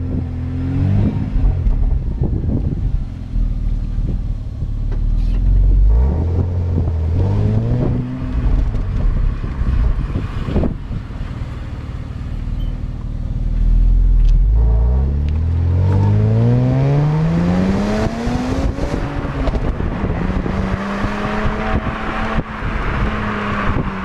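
Exhaust of an MG ZT 190's 2.5-litre KV6 V6 on its standard system, heard at the tailpipe. The engine note climbs in pitch under acceleration twice, falling back between, then settles to a steadier drone as wind and road noise rise near the end.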